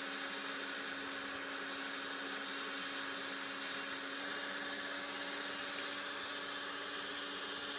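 A small electric motor running steadily: an even whir with a constant hum and hiss.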